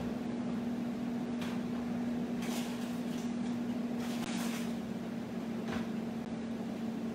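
A few soft knocks and rustles, about four over the stretch, from someone fetching things in the kitchen out of sight, over a steady low hum.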